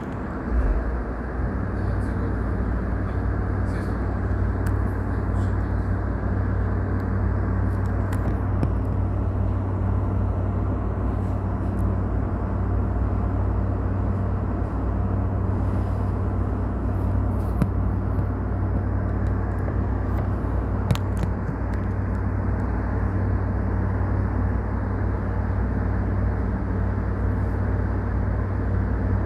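Steady hum and rush of a stopped electric train's onboard equipment, such as its air conditioning and auxiliary power, heard inside the passenger car. A deeper hum comes on about a second in and then holds steady, with a few faint clicks.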